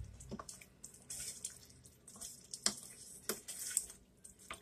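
A spoon stirring saucy penne pasta in a skillet: faint wet squelching, with a handful of light, irregular taps of the spoon against the pan.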